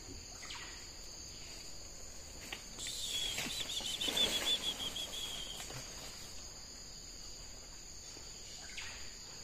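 Rainforest ambience: a steady high-pitched insect drone, like crickets or cicadas, throughout. About three seconds in, a rapid high trill joins for about three seconds, falling slightly in pitch.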